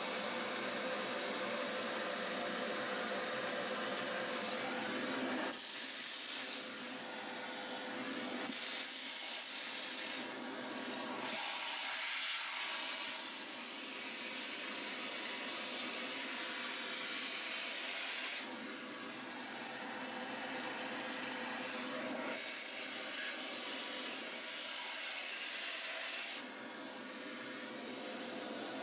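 Vacuum cleaner running, its hose nozzle sucking up loose substrate crumbs and droppings from the floor of a terrarium. The hissing rush of air shifts in pitch and level several times as the nozzle is moved about.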